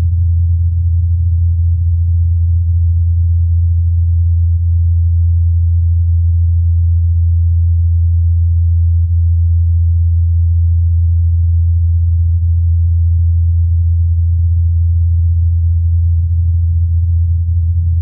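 Ingenuity Mars helicopter's rotor blades humming in flight as one steady low 84 Hz tone, recorded by the Perseverance rover's SuperCam microphone and filtered to isolate the blade hum, with the sound below 80 Hz turned down.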